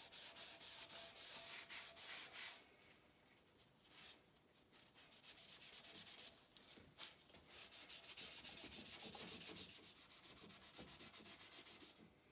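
Rapid back-and-forth scrubbing on a surface, a scratchy hiss repeating several times a second. It comes in two spells: a short one at the start and a longer one from about five seconds in, with a quiet pause between.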